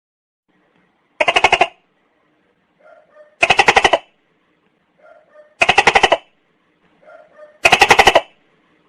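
Tokay gecko calling: four loud calls about two seconds apart. Each is a fast rattle of pulses about half a second long, and the last three are each preceded by a softer short note.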